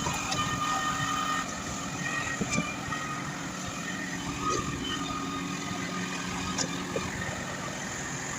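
Truck-mounted concrete pump running: steady engine hum with a held whine over it, and a few short sharp knocks.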